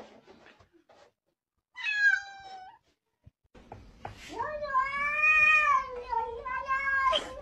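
A domestic cat meowing twice: a short meow about two seconds in, then a long, drawn-out meow that rises and falls in pitch from about four seconds in until near the end.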